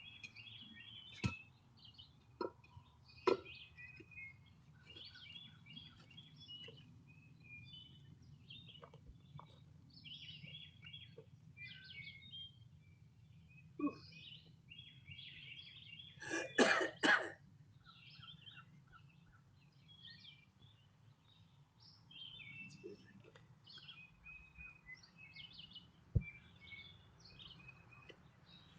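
Wild birds chirping and singing. A few sharp knocks are scattered through, and three quick loud sounds come close together about two-thirds of the way in, the loudest thing heard.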